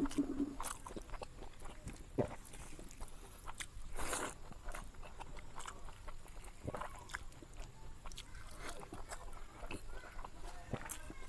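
Close-up eating sounds of a person chewing a mouthful of rice and omelette eaten by hand: wet mouth clicks and lip smacks scattered through, with one louder, longer sound about four seconds in.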